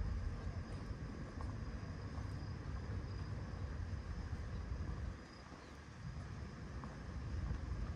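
Low, uneven outdoor rumble that eases about five seconds in and builds again near the end, with a faint, thin, steady high tone above it.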